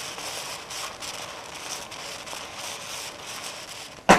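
Okra and onions sizzling as they fry in a pan, a steady hiss. Near the end there is one sharp, loud knock.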